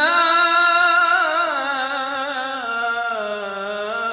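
A man's voice singing one long, ornamented note of Arabic religious chant (inshad), sliding up into it at the start, wavering around the pitch, and stepping down twice in the second half.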